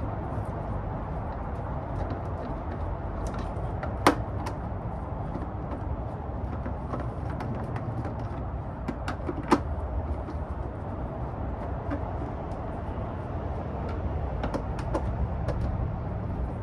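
Small clicks and ticks of Phillips screws being unscrewed and lifted from the plastic motor cover of a Worx electric mower, with two sharper clicks about four seconds and nine and a half seconds in. Under them runs a steady low background rumble.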